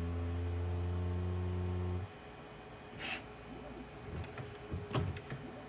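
A1 mini 3D printer buzzing steadily during its startup routine, then cutting off suddenly about two seconds in. A short hiss and a few light clicks of the toolhead follow.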